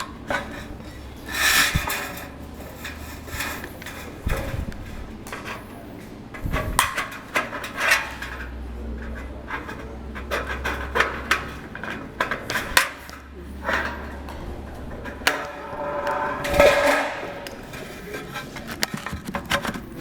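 Sheet-metal roofing trim being handled and fitted: irregular metallic clanks, knocks and scrapes, with several louder scraping rattles.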